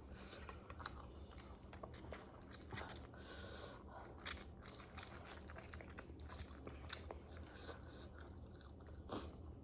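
Close-up eating sounds: chewing and biting with irregular small clicks and a few crunches, one sharper click about six seconds in.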